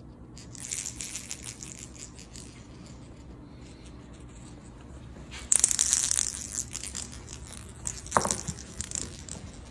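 Scratchy rustling and scraping against a thick woven rug, in bursts: one starting about half a second in, the loudest about five and a half seconds in, and another near the end with a sharp knock, as a cat pounces and claws at something being moved at the rug's edge.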